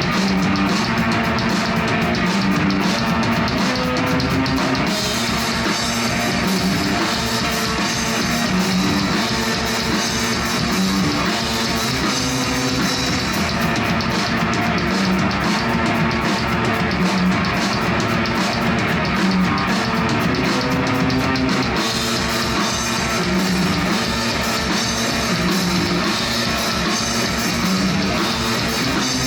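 Stoner rock band playing live, with guitar, bass line and drum kit.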